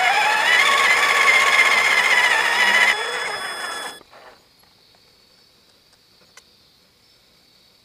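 Tonka Summit RC truck's drive motor whining as it drives, its pitch rising and falling with the throttle; it drops about three seconds in and cuts off suddenly a second later, leaving a faint hiss with a single small click.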